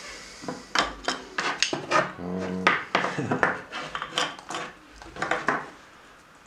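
Wooden dowel rods knocking and clacking against one another and the workbench as they are worked into a silicone shelf node, a rapid irregular run of sharp knocks with a short squeak a little past two seconds in.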